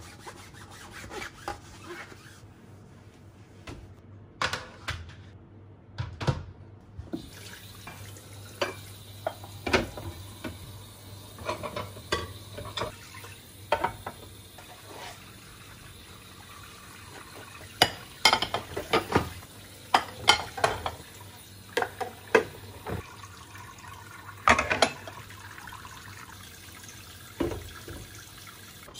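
Dishes washed by hand at a kitchen sink: the tap starts running about seven seconds in and runs steadily, with frequent clinks and knocks of plates and bowls being handled and stacked.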